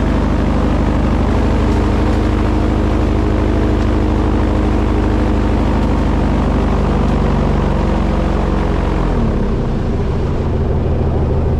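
Boat engine running steadily at speed, then throttled back about nine seconds in, its pitch falling.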